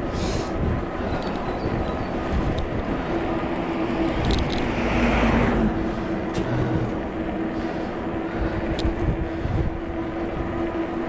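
Ride noise from a fat-tyre electric bike under way: wind rumbling on the microphone over a steady hum and tyre noise, with a brief swell of noise about halfway through.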